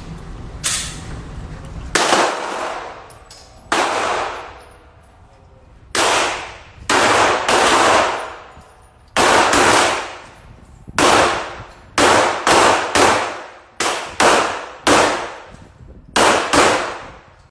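Firearm shots at a shooting range, about twenty sharp cracks fired at an uneven pace and coming faster toward the end, each ringing out with an echoing tail.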